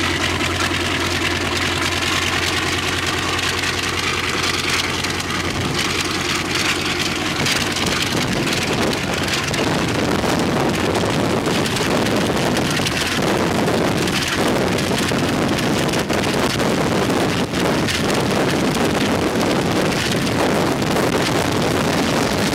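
Ilyushin Il-14T's Shvetsov ASh-82T 14-cylinder radial piston engine running on a ground run-up. It holds a steady note for about seven seconds, then gives way to a louder rushing sound of propeller blast and wind buffeting the microphone.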